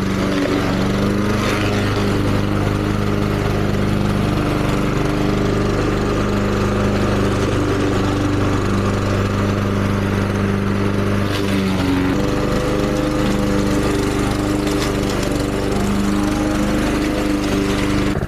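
Lawn mower running steadily as it mows up a heap of cut, wet dahlia stems and zucchini leaves. Its pitch shifts slightly about twelve seconds in.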